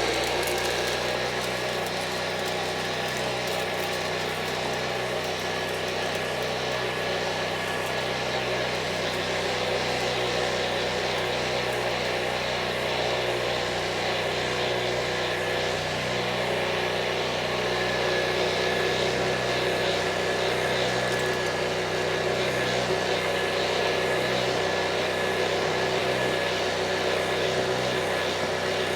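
Hoover Junior vacuum cleaner, a 300-watt dirty-fan machine, running steadily with its upholstery brush tool on the hose, a steady motor hum with a high whine.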